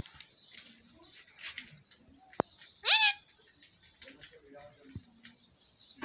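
Indian ringneck parakeet giving one loud, short squawk that rises in pitch, about halfway through. A sharp click comes just before it, and faint, short high chirps sound around it.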